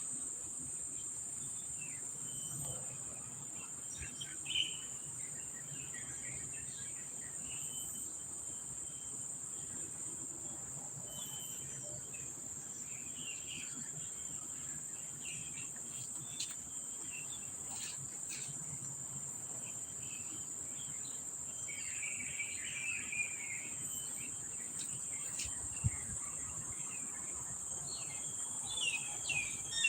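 Steady high-pitched insect chorus, with short bird chirps scattered through it and a quick run of chirps near the end.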